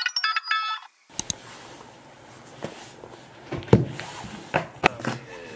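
Light melodic background music that cuts off about a second in, followed by room tone with a few close knocks and handling sounds from a tablet case and a puffer jacket, the loudest a thump a little past the middle.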